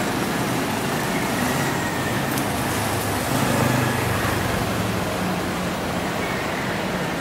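Road traffic noise heard while riding: a steady rush, with the low hum of a passing motor vehicle swelling about three to five seconds in.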